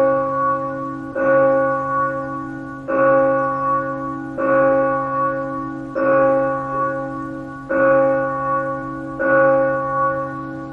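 A single heavy church bell tolling steadily, struck about every second and a half, each stroke ringing on and fading until the next. The ringing cuts off suddenly near the end.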